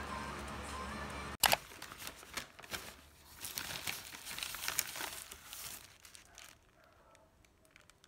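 Paper food wrapper crinkling and rustling in irregular bursts as a wrapped cheeseburger is handled, starting sharply after background music cuts off about a second and a half in and dying away near the end.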